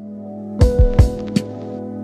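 Lo-fi chill background music: a held keyboard chord over a beat of kick-drum and snare hits, which starts a little after half a second in.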